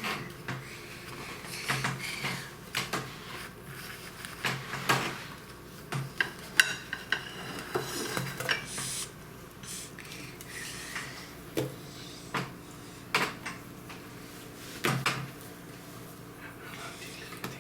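Kitchen utensils and dishes clinking and knocking at irregular intervals as food is handled.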